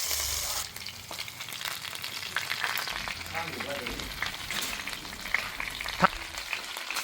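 Pork curry sizzling and frying in a pan while it is stirred, with the utensil clicking and scraping against the pan and one sharp knock about six seconds in.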